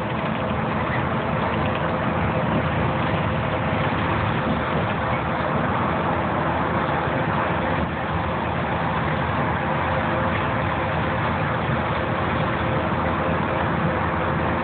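Transit bus in motion on a freeway, heard from inside the cabin: steady engine and road noise with a faint steady hum.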